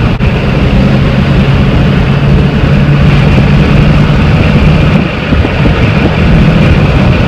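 Ford 7.3 Powerstroke V8 turbo-diesel truck driving, heard from inside the cab: a steady low engine drone under road and wind noise, easing briefly about five seconds in.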